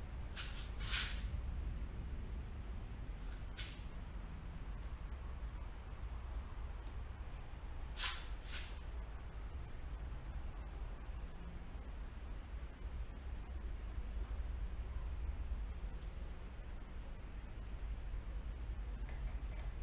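Insects chirping, a regular short chirp about twice a second over a steady high hum. A few sharp clicks stand out about a second in, once near four seconds, and twice near eight seconds.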